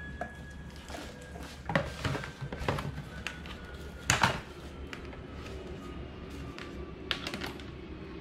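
Handling noise on a tabletop: a few sharp knocks and clatters as a fan's cardboard box and cables are shifted about. Underneath, a faint steady hum and a thin whine slowly fall in pitch.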